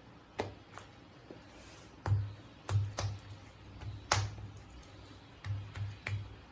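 Oiled porotta dough being flung and slapped thin against the work surface: a run of irregular soft slaps and dull thuds, the loudest about four seconds in.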